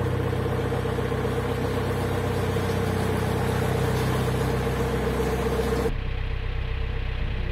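Narrowboat engine running steadily under way, a low drone with a steady hum on top. About six seconds in the sound changes abruptly to a duller, quieter engine drone.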